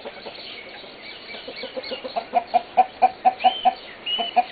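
Chickens clucking: a quick run of short clucks, about five a second, that starts about a second and a half in and grows louder, with a few short high-pitched calls near the end.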